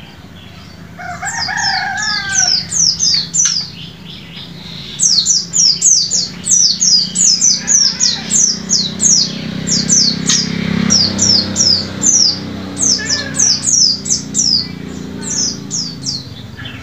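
A caged white-eye (pleci) singing loudly in runs of rapid, high, down-sweeping notes, several a second. A short run comes near the start and a long unbroken run follows from about a third of the way in.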